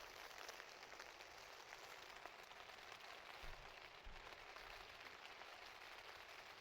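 Faint, steady pattering and hiss of wind-driven snow, with many small ticks.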